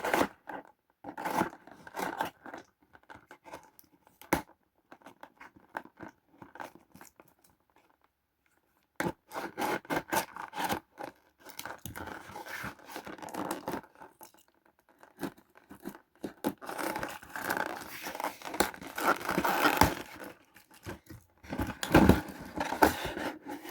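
A shipping package being opened by hand: irregular scraping and tearing of the packaging, stopping for a second or two about eight seconds in, then denser and more continuous.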